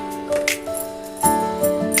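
Background instrumental music: held melodic notes over a light percussive hit about every second and a half.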